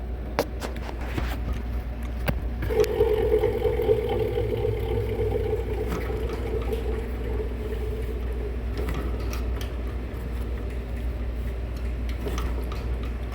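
Belt-driven air-handler blower motor running with a steady low hum and a whining tone that comes in about three seconds in and fades over several seconds, after a few clicks. The noise comes from a failing motor and pulley that are due for replacement before the motor locks up.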